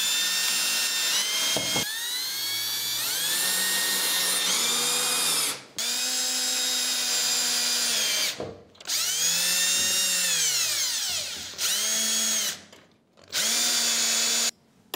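Cordless drill-driver driving screws through perforated metal brackets into Fermacell wall panels: about five runs of motor whine, each climbing in pitch as the trigger is squeezed and sagging as it is let go, with short breaks between.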